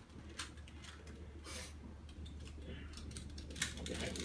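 Plastic twisty puzzle being turned by hand: irregular clicks and short rasps as its layers are twisted, over a low steady hum.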